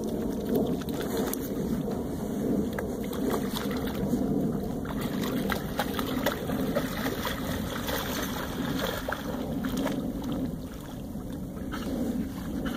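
Water sloshing and splashing as two Norwegian Elkhounds wade and swim through a shallow pond, with a steady rumble of wind on the microphone.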